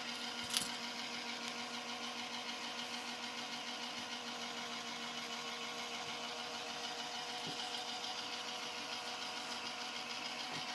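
The small electric animation motor in an MTH Santa Fe boxcar with Signal Man, running steadily with an even mechanical hum.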